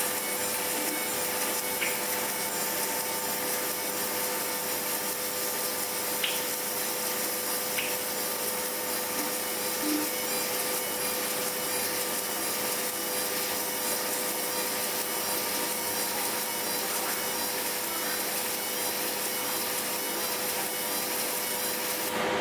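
Fiber laser marking machine deep-engraving a copper plate: a steady rasping hiss with a constant hum underneath and a few faint ticks.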